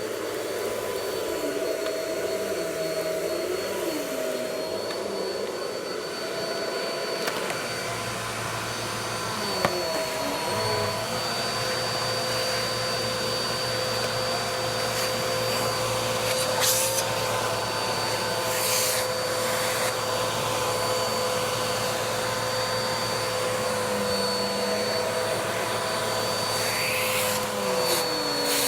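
Vacuum cleaner running steadily, its motor whine dipping and shifting in pitch a few times, with a few brief knocks.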